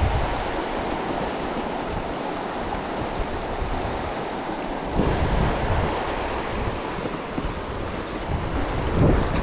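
Fast, shallow river riffle rushing over stones, with wind buffeting the microphone in gusts, strongest about five seconds in and near the end.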